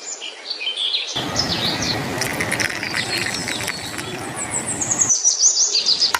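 Birds chirping in quick, repeated calls over a steady rushing background noise that cuts in abruptly about a second in and cuts out near the end.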